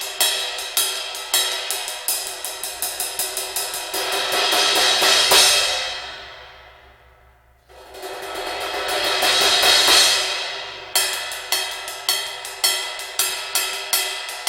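Set of custom hand-hammered, lathed, soil-toned cymbals being played: steady strokes of about four a second, then a cymbal roll that swells up and fades away almost to nothing. A second swell starts suddenly and builds, and steady strokes resume near the end.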